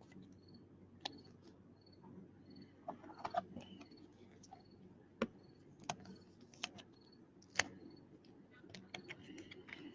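Faint, scattered sharp clicks and light rustles from handling things at a desk, five or so distinct clicks spread a second or more apart with a brief cluster of rustling in between.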